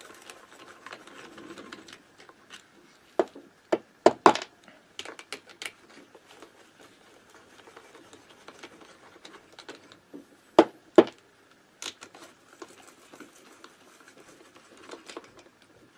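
Hand socket wrench working the cylinder-head nuts off a Minarelli AM6 two-stroke engine: a scattered run of light metal clicks and tool rattle, with a few sharper metal knocks in a cluster about four seconds in and a pair around eleven seconds.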